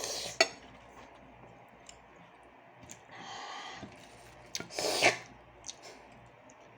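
Scattered clicks, rustles and short noisy bursts from a monkey eating and handling its food.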